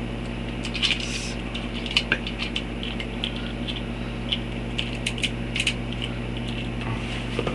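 Small hard-plastic clicks and taps as a tiny plastic accessory is pushed against pegs on an action figure's back, over a steady low hum.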